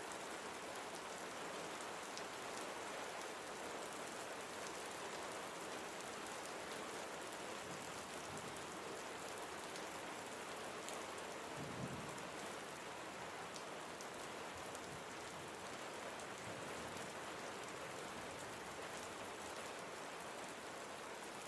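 Steady rain falling, a constant hiss with scattered drop ticks. A single brief low thump sounds about halfway through.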